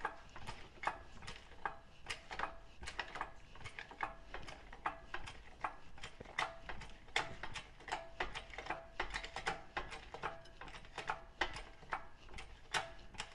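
Irregular sharp metallic clicks, about two to three a second, some with a faint ring, from hand work on a tractor transmission's gears.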